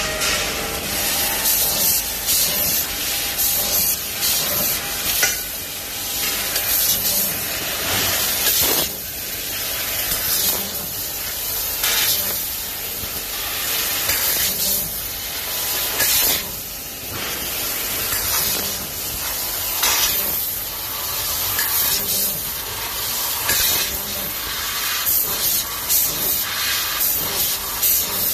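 Tube laser cutting machine at work: a steady hiss with frequent short, louder bursts of hissing at uneven intervals.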